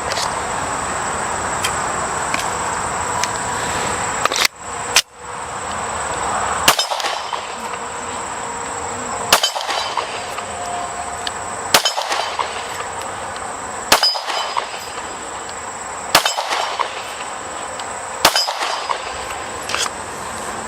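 Glock 17 9mm pistol fired at steel targets at a slow, steady pace, about eight shots roughly two seconds apart, each followed by the clang of the struck steel ringing.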